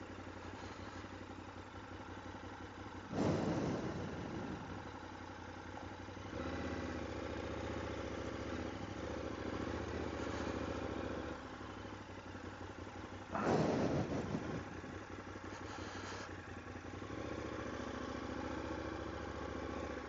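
KTM adventure motorcycle engine running at low revs as the bike rolls slowly over cobblestones and grass. Its steady note rises a little twice and settles back. Two short, louder bursts of noise come about three seconds in and about thirteen seconds in.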